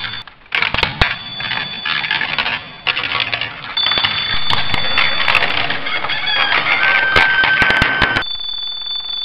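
Wallace & Gromit Cracking Alarm Clock toy going off: steel ball bearings rattle and click down its plastic chutes over a steady high-pitched alarm tone, which breaks off and restarts several times.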